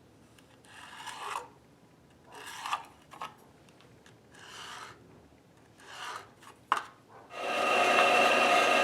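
Four rubbing strokes of a hand tool across wood and a sharp click, then an electric power tool starts up about seven seconds in and runs steadily, much louder than the strokes.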